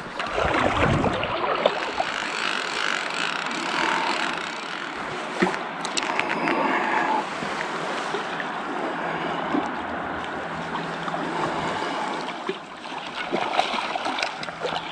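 Steady wash of flowing river water, with wind buffeting the microphone, heaviest in the first couple of seconds. A low steady hum from a distant boat motor runs underneath in the second half.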